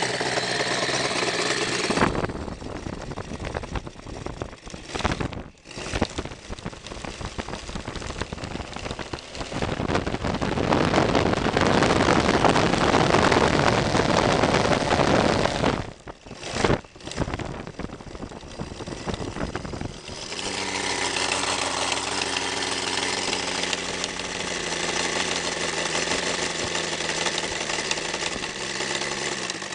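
Seidel SE-170 seven-cylinder radial model aircraft engine running in on a test bench with its propeller. It runs louder and rougher through the middle, with two brief sudden drops, then settles to a steady idle about twenty seconds in.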